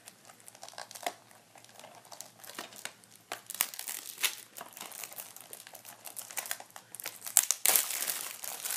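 Plastic shrink wrap on a DVD case crinkling and tearing as it is pulled off, a run of irregular crackles that grows loudest near the end.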